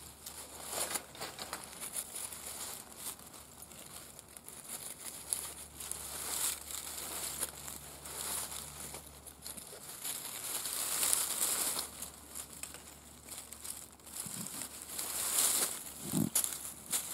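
Dry fallen leaves rustling and crackling in uneven bursts as a wool blanket bedroll is pressed and rolled tightly over them and leather straps are pulled around it.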